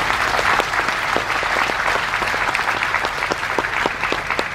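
Audience applauding, the dense clapping thinning to scattered single claps toward the end.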